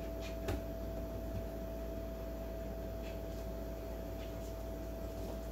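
Room tone: a steady electrical hum with a few faint clicks.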